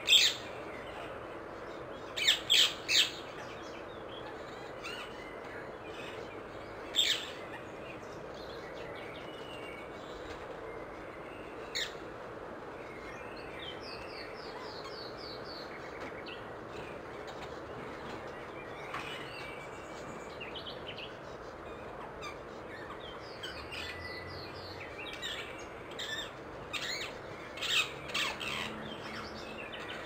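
Rose-ringed parakeet calling: short, shrill calls, one right at the start and three in quick succession a couple of seconds in, then single calls spaced out. Quieter quick runs of notes come in between, and a cluster of calls follows near the end.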